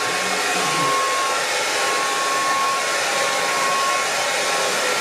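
Handheld hair dryer blowing steadily on its high, hot setting: an even airy noise with a thin, steady whine running through it.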